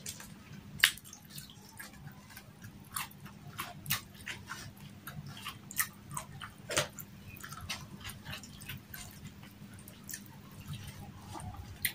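Close-miked eating by hand: irregular mouth clicks and smacks of chewing, the loudest about a second in.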